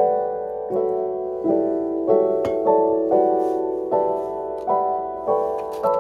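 Background piano music: soft chords struck in an even, unhurried rhythm, each one fading before the next.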